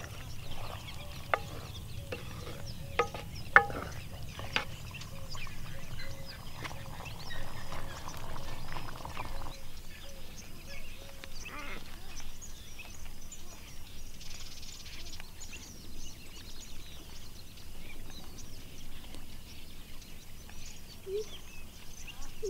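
Birds calling and chirping over rural background noise. A few sharp knocks sound in the first five seconds, and a low hum stops about nine and a half seconds in.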